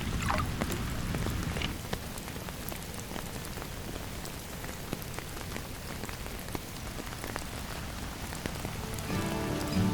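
Steady rain falling on a tent, with scattered individual drops ticking throughout. Acoustic guitar music comes in near the end.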